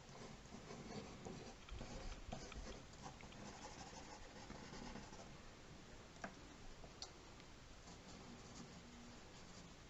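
Faint scratching of a drawing tool sketching on paper in short strokes, busier in the first half.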